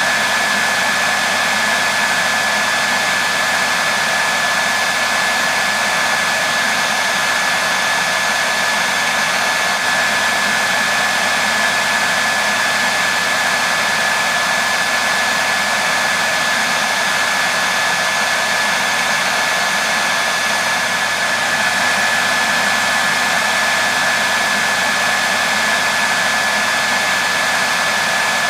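Hair dryer running continuously as steady white noise: an even hiss with a thin steady whine on top, unchanging throughout.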